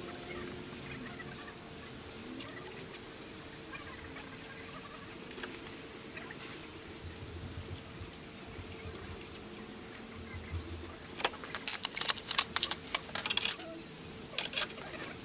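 Light clicking and metallic rattling of small hard objects, sparse at first and then dense from about eleven seconds in, with a sharp click near the end, over a faint steady hum.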